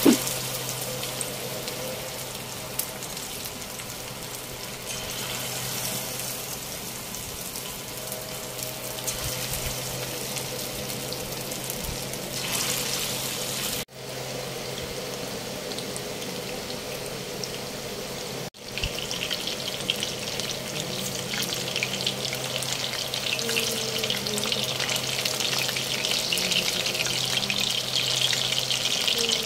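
Marinated chicken pieces frying in hot oil in a steel pan: a steady crackling sizzle. It breaks off briefly twice in the middle and is louder and busier over the last third.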